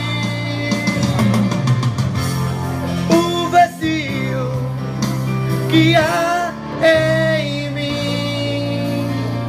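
A man singing long held notes with vibrato into a microphone, over backing music with guitar.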